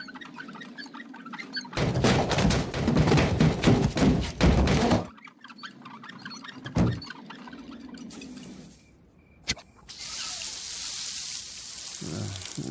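A loud rattling, clattering noise for about three seconds, then a single thunk and a click. From about ten seconds in, a steady hiss of falling water begins.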